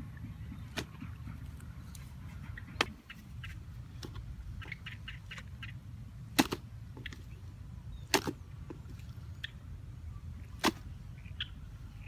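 Sharp, separate wooden clicks and knocks, a second or two apart with a quick run of small ticks in the middle, as dry sticks and a bark slab are handled and fitted together into a deadfall trap. A steady low rumble runs underneath.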